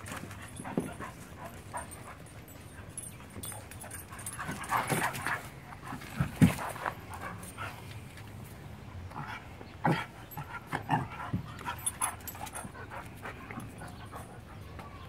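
Dogs playing together: scattered short dog noises and scuffling, with a sharp, loudest sound about six and a half seconds in.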